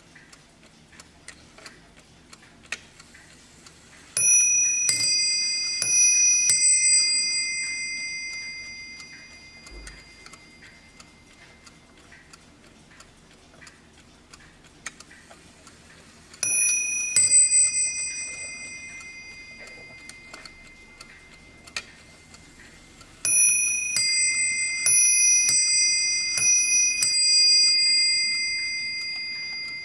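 Warmink Dutch mantel clock ticking, then chiming on its two bells as its minute hand is turned by hand. Three runs of alternating ding-dong strikes come about four seconds in, near the middle and near the end, each ringing on and fading slowly.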